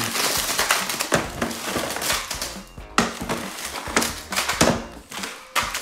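Plastic toy lawn mower pushed back and forth across a tabletop: rolling wheels and irregular plastic clacks and knocks.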